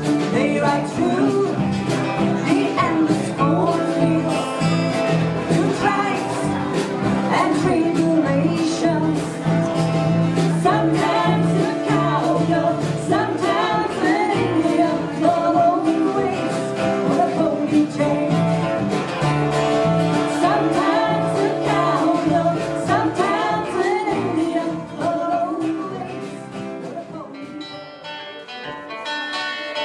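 A live band plays a song, with women singing over acoustic and electric guitars and an upright double bass. The song quietens and winds down near the end.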